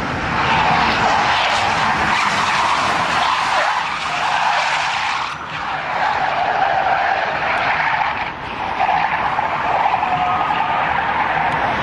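Car tyres skidding as a car drifts sideways on the road, a loud continuous screech with brief dips about five and a half and eight and a half seconds in.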